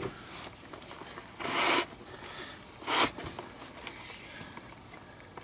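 Leather glove lace pulled quickly through the lacing holes of a baseball glove, twice, with a zipping sound. The first pull comes about a second and a half in and is longer; the second, shorter one comes about three seconds in.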